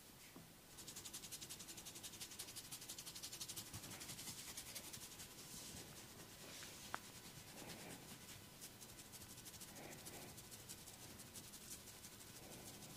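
Faint, fast, even rubbing strokes of hands working over skin during a massage, with one brief sharp click about seven seconds in.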